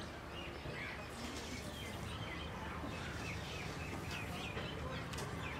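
Outdoor ambience: small birds chirping over and over against a steady low background rumble.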